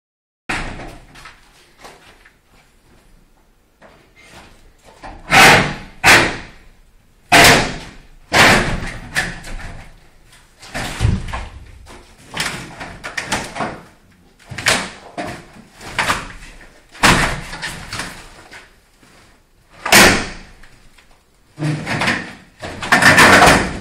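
Plasterboard being smashed in over a dozen heavy, irregularly spaced blows. Each is a sharp crack or thud followed by a short crumbling clatter of breaking board.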